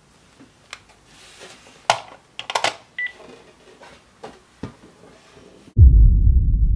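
Scattered clicks and knocks from a mobile phone being handled, with one short beep about three seconds in. Just before the end, a sudden loud low rumble starts.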